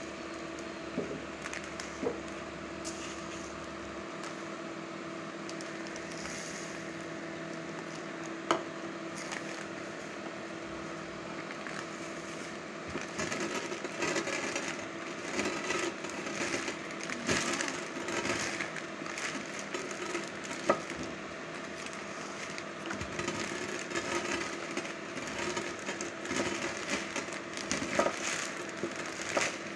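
Coriander seeds being crushed under a wooden rolling pin inside a plastic bag: irregular crackling and crunching with plastic rustling, denser from about 13 seconds in, over a steady hum. The seeds are being split in half before sowing.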